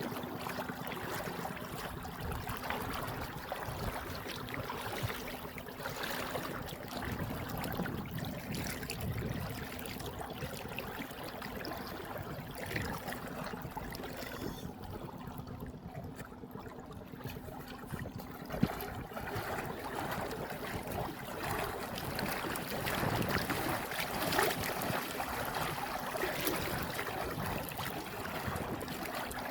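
River water splashing and trickling in uneven surges, with a faint steady hum underneath. A single sharp knock comes about two-thirds of the way through.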